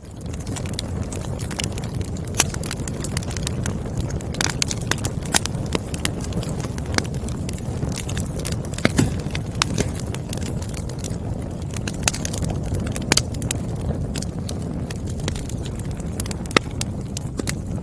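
Wood fire crackling: sharp, irregular pops and snaps from burning firewood over a steady low rumble of flame.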